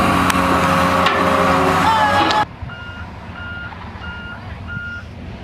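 Heavy-equipment diesel engine running with a steady drone, then the sound drops abruptly and a backup alarm beeps four times, about one beep every 0.7 s, over a quieter engine.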